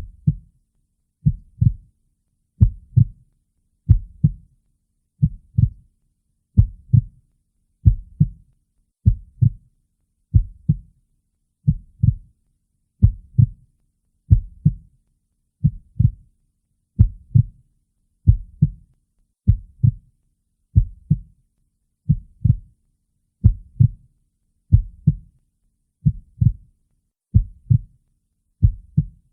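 Heartbeat sound: a slow, steady lub-dub, each beat a pair of low thumps, about one beat every 1.3 seconds, with silence between beats.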